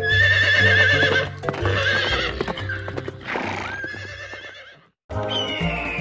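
Horse neighing: a wavering whinny in the first second and another shorter whinny about three and a half seconds in, with hoofbeats clip-clopping. Children's background music with a steady bass runs underneath.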